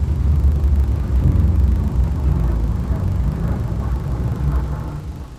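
City street traffic noise: a steady low rumble of passing cars, fading out near the end.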